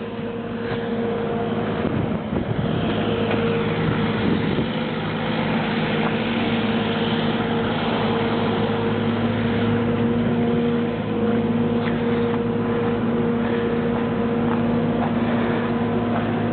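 A motor vehicle engine running steadily nearby, a constant droning hum under a steady wash of noise.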